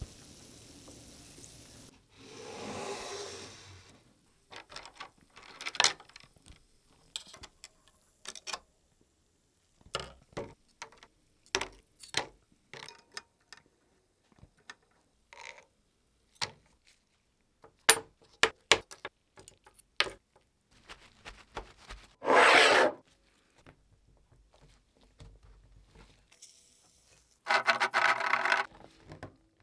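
Objects being handled on a work surface: scattered clicks and taps, with three longer scraping, rubbing sounds, the loudest a little over 22 seconds in.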